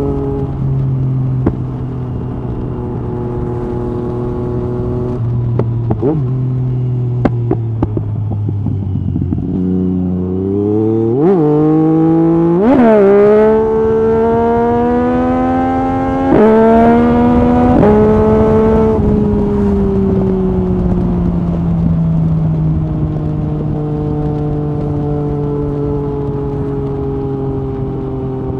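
Yamaha MT-09 SP's three-cylinder engine through an Akrapovic Carbon Racing-Line exhaust with the dB killer out, under way. It eases off at first, gives two sharp throttle blips a little before the middle, then pulls hard through two clipped quickshifter upshifts. It rolls off and settles into a steady cruise near the end.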